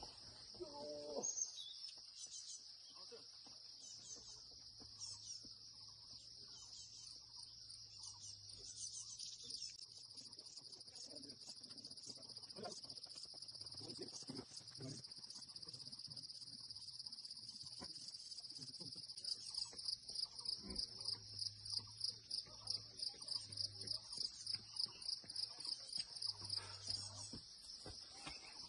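A shrill, steady chorus of insects. About two-thirds of the way in it turns into a rhythmic pulsing, roughly three pulses a second.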